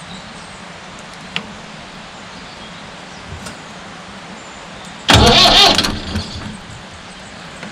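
Starter motor briefly cranking a Fordson Major four-cylinder diesel engine, one short burst of under a second about five seconds in, inching the engine round to bring the next valve into position for setting its tappet. A sharp click comes just over a second in.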